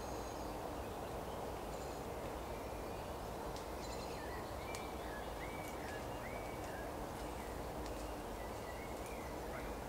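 Woodland ambience: birds calling in short whistled phrases, several in quick succession in the second half, with occasional high chirps, over a steady low rushing background.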